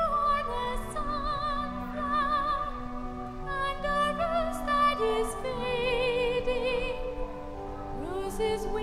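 Slow music: a high singing voice holds long notes with wide vibrato over sustained lower accompaniment notes.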